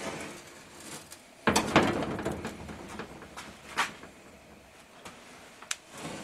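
Handling noise from a camera being picked up and repositioned by hand: a scuffing rub about one and a half seconds in, then a few sharp clicks and knocks.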